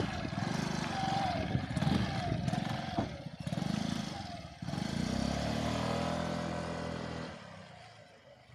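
Small motor scooter engine revving as it rides off, then fading away near the end.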